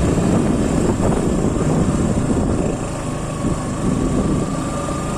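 Motorcycle running on a rough road, with a steady rush of engine, road and wind noise on the rider's microphone.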